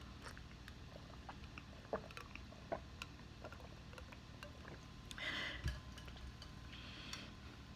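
Faint eating sounds: scattered small mouth clicks and smacks while chewing, with a short hissing burst about five seconds in and a low thump just after it.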